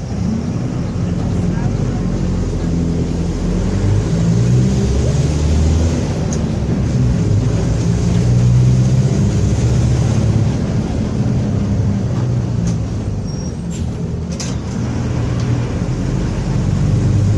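Mercedes-Benz OF-1721 city bus under way: its diesel engine and drivetrain running with a droning note whose pitch rises and falls in steps, with the growl of the differential. A couple of sharp knocks come about two-thirds of the way through.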